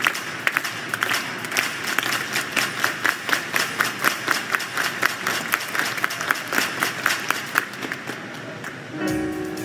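Audience applauding, with one set of sharp claps loud and close coming about three a second. Just before the end the clapping dies down and music with held tones starts.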